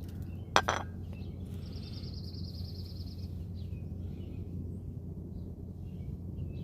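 Outdoor ambience with a steady low hum, broken about half a second in by one short, sharp burst, the loudest sound. A rapid high trill follows for under two seconds, then faint bird chirps now and then.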